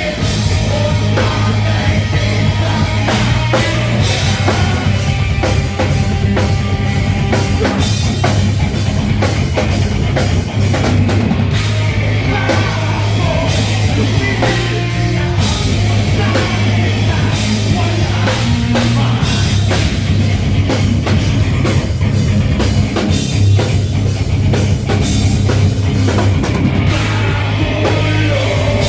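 A rock band playing loud and live: a drum kit hit throughout over a strong bass line, with a singer's voice.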